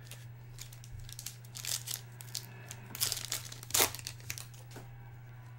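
Light crinkling and rustling of trading cards and their pack wrapping being handled, in short irregular bursts, the loudest a little before the 4-second mark.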